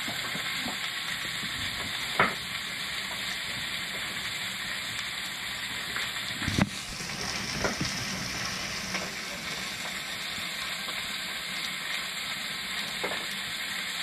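Sliced vegetables frying in olive oil in a pan, a steady sizzle, with a few sharp knocks, the loudest about two seconds in and just past the middle.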